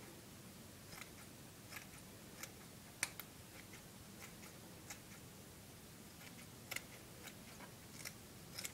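Scissors snipping faintly in short, irregular snips, about a dozen, trimming the fibre bristles of a twisted-wire bottle-brush model pine tree into shape.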